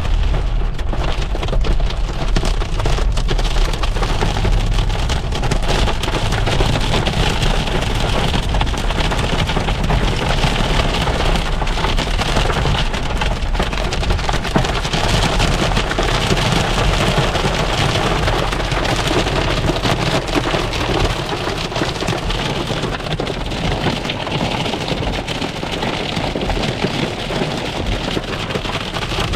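Hailstones pelting the roof and windscreen of a car, heard from inside the cabin as a dense, steady rattle of countless small hits. A low rumble runs underneath and eases after about twenty seconds.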